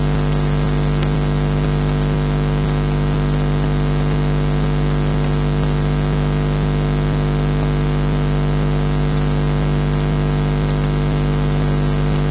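Steady electrical hum made of many constant tones, with faint irregular crackling clicks over it, on a nest camera's audio feed.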